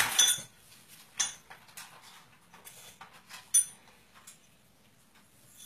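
A handful of sharp clinks and knocks of small tableware being handled on a plate, the loudest and most ringing about three and a half seconds in. A louder knocking clatter comes at the very start.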